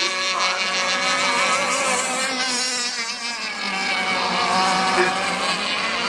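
Several radio-controlled model unlimited hydroplanes racing, their small high-revving engines whining together at different pitches that rise and fall as the boats run the course.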